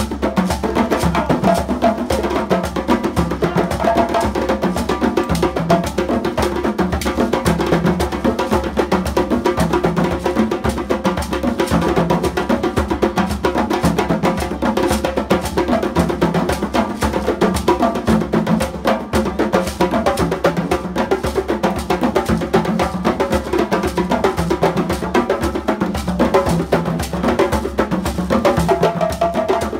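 West African hand-drum ensemble of djembes, congas and dundun bass drums playing a continuous, steady polyrhythm.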